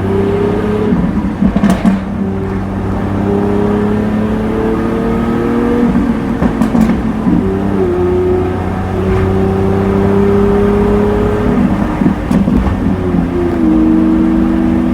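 Lamborghini Aventador S V12 with a Power Craft exhaust, accelerating through the gears. The engine note climbs slowly in each gear and drops at three upshifts, with a few sharp exhaust crackles around the shifts.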